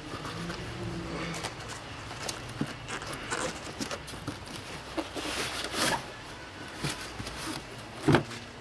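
Cardboard packaging being handled: scattered scrapes, rustles and light knocks as cardboard inserts are shifted and lifted out of a box, with a sharper knock about eight seconds in.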